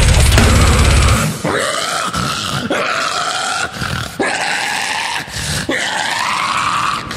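Deathcore music. A heavy, bass-laden breakdown cuts out about a second in, leaving a harsh vocalist's guttural screams: about six long held growls with short breaks between them and little or no backing.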